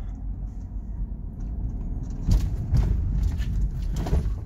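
Low engine and road rumble inside the cabin of a moving car, a Japanese automatic, with a few sharp thumps about halfway through and again near the end.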